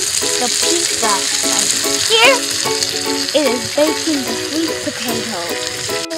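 Steady sizzling hiss of diced potatoes frying in a skillet over a campfire, with a light background music melody over it.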